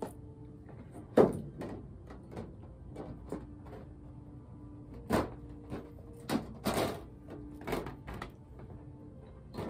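Picture frames with clear see-through backings being handled and set down on a stack, giving a series of separate clacks and knocks. The loudest knock comes about a second in, with a cluster of others a few seconds later.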